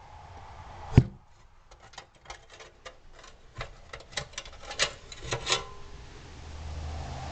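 Small metal parts and hardware clinking and clicking as they are handled and sorted through in a box, with one sharp knock about a second in.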